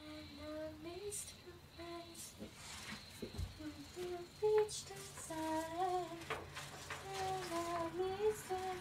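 A woman humming a wordless tune, holding and sliding between notes, with a few short taps and rustles between them.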